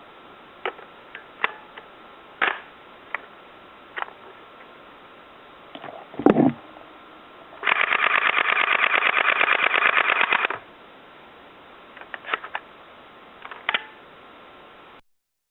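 CYMA CM023 MP5 airsoft electric gun firing single shots, then a thump, then a full-auto burst of about three seconds with a fast, even rattle. A few more single shots follow near the end.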